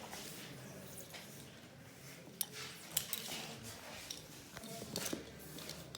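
Small hard objects being handled, clicking and clinking: a few sharp clicks, the clearest about two and a half, three and five seconds in, over a low background.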